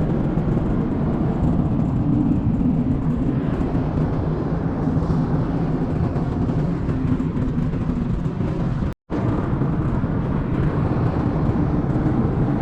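Strong wind buffeting the action camera's microphone, a steady heavy rumble, broken by a brief dropout about nine seconds in.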